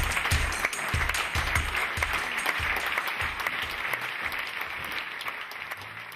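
Audience applauding, with walk-on music keeping a steady beat underneath; both fade down toward the end.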